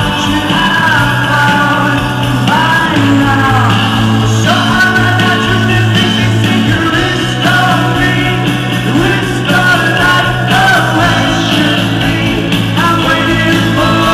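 Rock band playing live, with lead vocals sung over the full band.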